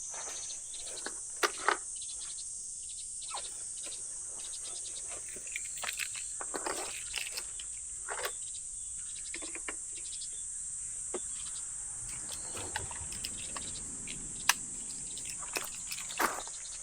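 A steady high-pitched insect chorus, with scattered irregular taps and knocks over it, the loudest a pair about a second and a half in.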